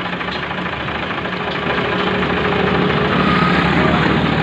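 Ford tractor's diesel engine idling steadily, getting a little louder about two seconds in.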